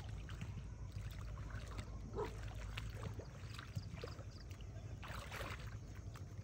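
Soft splashing and lapping water from a man and a Belgian Malinois swimming together in a pond, a few separate splashes over a steady low rumble.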